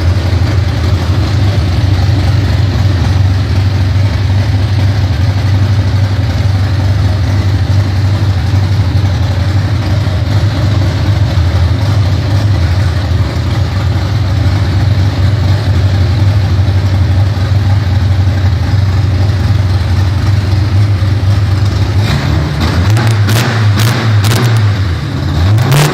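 Chevrolet Opala's engine running loud at a steady idle, then revved up and down a couple of times in the last few seconds.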